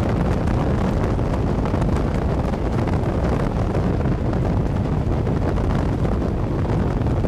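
Strong wind buffeting the camera microphone: a loud, steady, rumbling rush of noise.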